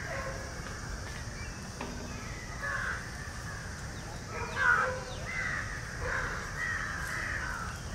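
Birds calling repeatedly in the background, with the loudest call a little past halfway, over a low steady rumble.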